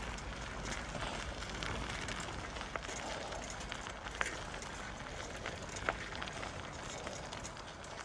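Bicycle tyres rolling over a packed-snow, icy path, a steady crunching crackle with two sharper clicks, about four and six seconds in.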